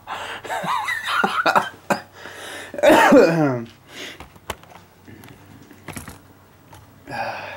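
A man coughing and clearing his throat, with a few sharp clicks and knocks of metal suspension parts being handled on a bench.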